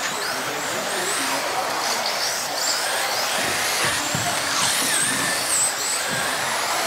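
Radio-controlled off-road model cars racing: high, thin motor whines glide up and down over a steady hiss as the cars speed up and slow down.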